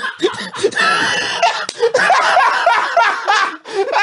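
Men laughing hard together, in quick repeated 'ha' bursts, about three a second.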